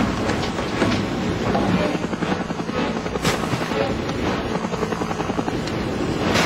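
Helicopter in flight, heard from inside the cabin with the side door open: steady rotor and engine noise.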